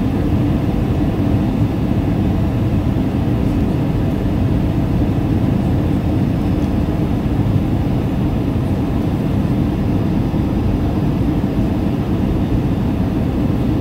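Airliner cabin noise on descent: a steady, loud low rumble of jet engines and airflow heard from inside the passenger cabin.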